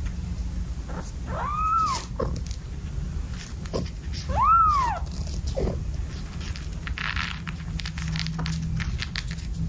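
A cat meowing: two high meows that rise and fall, each under a second long and about three seconds apart, with a few short, faint mews between them, over a steady low hum.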